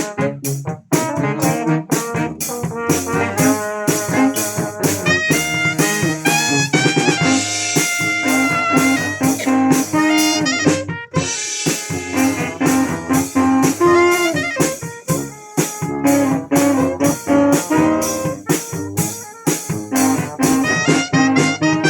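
A brass band playing a pop song, with horns carrying the melody over a steady drum beat.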